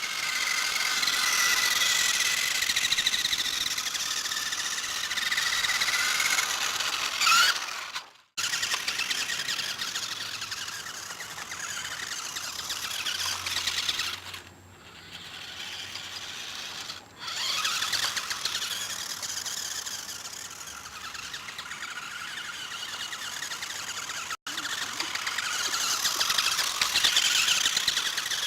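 A toy-grade RC buggy's small electric motor and plastic gears whining as it drives, the pitch rising and falling with speed. The sound cuts out abruptly about eight seconds in and again briefly later.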